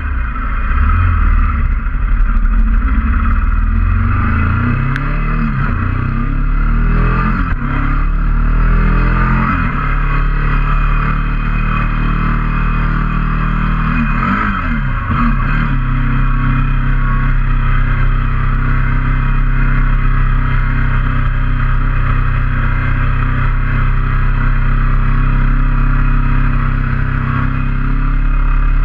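Motorcycle engine pulling away and accelerating through the gears: its pitch climbs and drops back at each upshift over the first ten seconds, with another shift about fourteen seconds in, then it runs at a steady cruise under a constant rush of wind noise.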